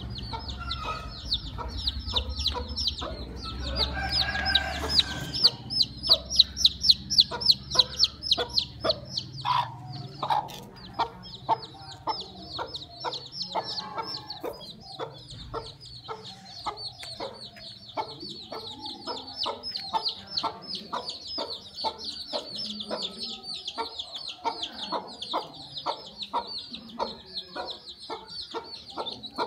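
Chicks peeping without a break, quick high chirps several a second, loudest about a third of the way in, with a hen clucking low beneath them.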